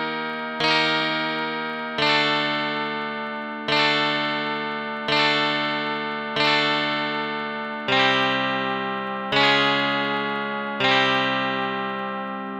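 Chords played on the Heavenly Chords phone app: eight chords struck a little over a second apart, each ringing out and fading before the next. The chord changes twice along the way.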